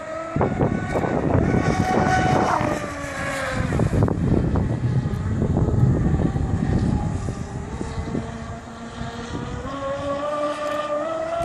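Electric RC race boat's motor and propeller whining across the water, its pitch rising and falling with the throttle: climbing over the first couple of seconds, dropping about three to four seconds in, and climbing again near the end. A gusty low rumble of wind on the microphone runs underneath.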